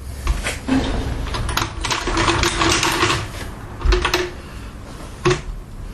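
Metallic clicks, knocks and rattling of tools and engine parts being handled during engine fitting, irregular throughout with a denser rattling stretch in the middle and sharp knocks about four and five seconds in.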